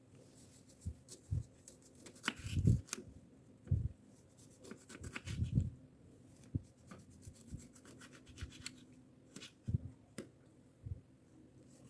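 Irregular rubbing and scrubbing with scattered light knocks and clicks, as of a refrigerator being wiped clean and its parts handled.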